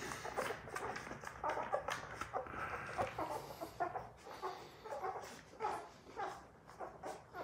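Labrador retriever puppies squeaking and grunting while nursing, with many short, high little calls one after another.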